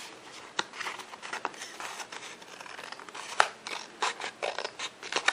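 Scissors snipping through a paper party hat, a run of irregular short snips with the paper rustling as it is turned in the hand.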